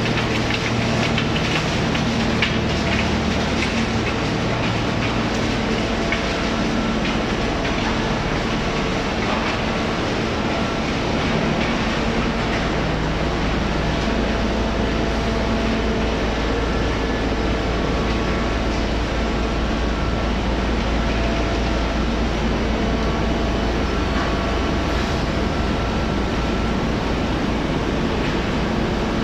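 Recycling plant's crushing and sorting machinery running: a loud, steady mechanical din with several constant hums. A deep drone grows louder about twelve seconds in.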